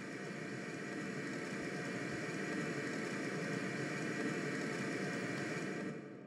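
A steady, noisy drone that slowly grows louder, then fades away about six seconds in.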